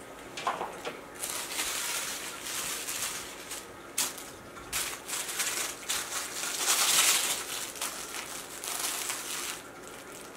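A West Highland White Terrier puppy chewing and shaking a crinkly toy, giving irregular bursts of crinkling and rustling that are loudest about two-thirds of the way in.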